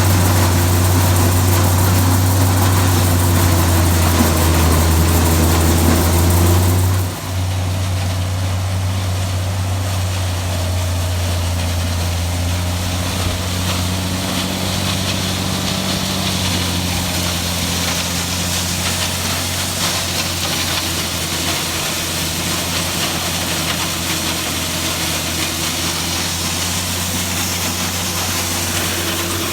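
Tractor engine running steadily while driving a New Holland 354 grinder mixer grinding ear corn, a loud low drone. About seven seconds in the sound changes abruptly to a slightly quieter, steady run.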